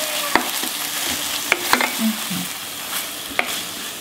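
Onion, pepper-paste and herb mixture sizzling in a hot frying pan on the pan's leftover heat, the burner just switched off, while it is stirred with a spoon that clinks against the pan a few times.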